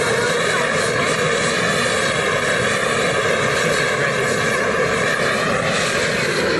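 Handheld gas blowtorch flame roaring steadily while heating a test tube clamped on a stand, the melting stage of the screaming jelly babies demonstration before the sweet is dropped in.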